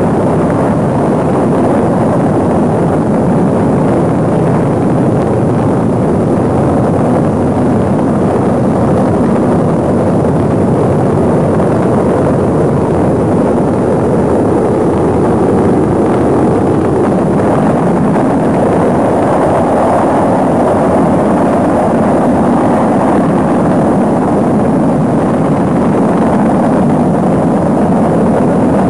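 Saturn V rocket's engines firing at liftoff: a loud, steady rushing noise that holds without letup.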